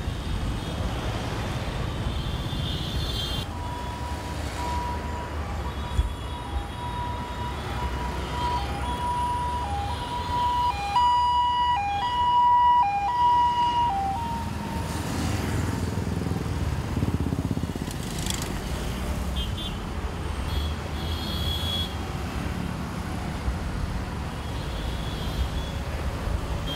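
Busy road traffic of cars, motorbikes and auto rickshaws, with a steady engine and tyre rumble and scattered horn toots. From about four seconds in, an emergency siren sounds, holding one pitch with brief drops to a lower one; it grows louder toward the middle and stops about halfway through.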